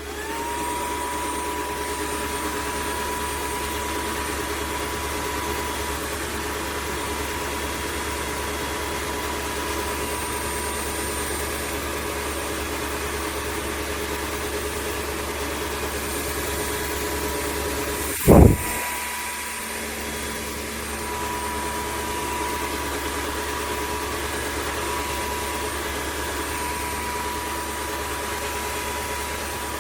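Dreame H12 Pro wet-dry vacuum mop switching on in auto mode: the motor spins up with a quick rising whine, then runs steadily with a high whine over a rushing hum. A brief loud thump cuts in about eighteen seconds in, and the machine runs on afterwards.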